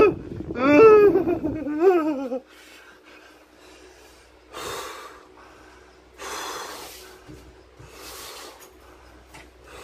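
A frightened man's voice: loud, wavering cries for about the first two seconds, then three heavy breaths about a second and a half apart.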